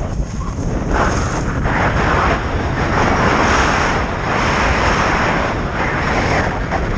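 Wind rushing over the camera microphone during a fast run down a groomed ski trail. Edges scrape across packed snow, and the hiss swells with each carved turn, four times.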